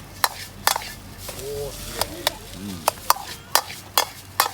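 Fried rice being stir-fried in a Chinese wok: a metal utensil strikes and scrapes the pan in about ten sharp clanks at an uneven pace, over a faint sizzle.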